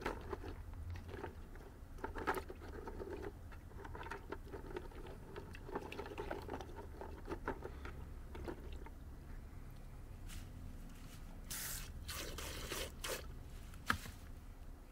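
Water splashing and sloshing in a pail of rocks, with scattered small knocks and scrapes throughout and a cluster of louder splashy bursts near the end.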